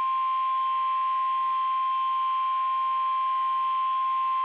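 NOAA Weather Radio 1050 Hz warning alarm tone: one steady, unbroken tone, loud, over a faint hiss of radio static. It is the signal that a warning-level alert message is about to be read.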